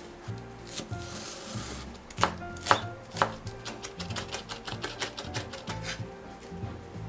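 Knife chopping on a cutting board: three heavy strokes a couple of seconds in, then a quick, even run of about five chops a second. Soft background music underneath.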